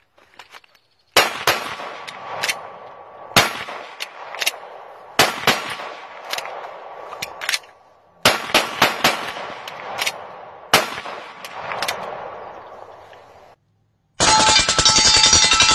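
Pistol shots fired in uneven groups, with a faint ringing tone lingering between them. About fourteen seconds in, a long, very rapid burst of rifle fire starts.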